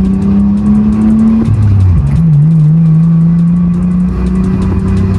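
Mitsubishi Eclipse's engine droning through an Invidia N1 cat-back exhaust on the road. Its pitch climbs slightly, then drops abruptly about a second and a half in, as on a gear change, and settles again.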